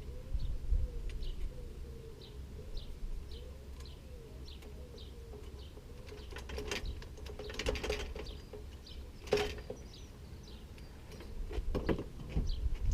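A small bird chirping over and over, one short high note about every half second. A few sharp clicks and knocks come in among them, the loudest about nine seconds in.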